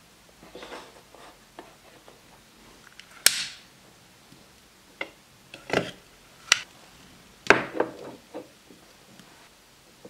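A string of sharp clicks and light knocks, some with a brief hiss after them: a long-nose lighter being clicked and lit over a miniature gas stove burner, and a small ceramic pan being set down on the burner. The loudest clicks come about three, six and a half and seven and a half seconds in.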